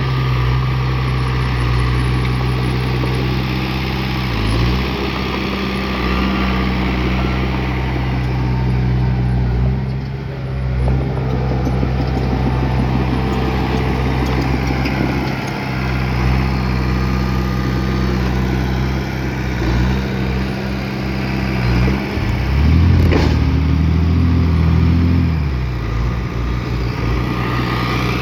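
Heavy diesel engine of earth-moving machinery running steadily, its note dipping and shifting as it works. A sharp click comes about two-thirds of the way through, and the engine note is higher and stronger for a few seconds.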